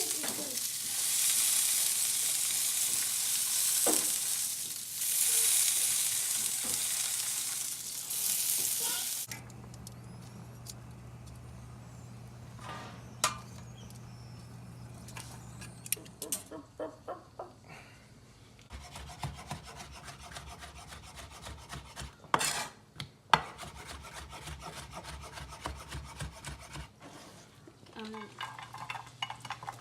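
Food sizzling in a hot pan, loud and swelling several times, for about nine seconds before it stops abruptly. After that come quieter kitchen sounds: scattered clicks and knocks of utensils, with two sharper knocks past the middle, over a low steady hum.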